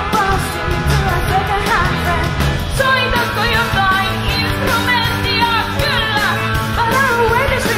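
Live rock 'n' roll band playing a song, a woman singing lead over guitars, cello, keyboard and drums, heard straight from the mixing desk. The backing changes about three seconds in.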